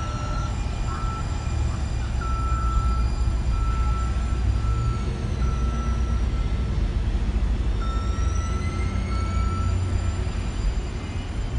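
Atlanta Streetcar tram (a Siemens S70 light-rail vehicle) running along street track with a low rumble and a faint high electric whine that falls in pitch and then rises again from about eight seconds in. A repeating electronic beep sounds in short pulses through the first half and again around eight seconds in.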